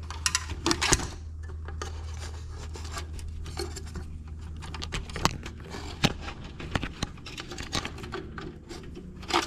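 Scattered light clicks, taps and scrapes of motorcycle turn-signal wires and their small plastic connectors being fed by hand through a hole in a bracket, over a steady low hum.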